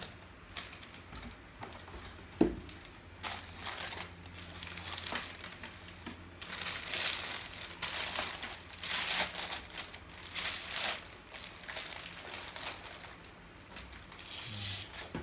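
Packaging being handled while computer speakers are unboxed: plastic wrap and packing material crinkling and rustling in a string of swishes, with a single knock about two and a half seconds in.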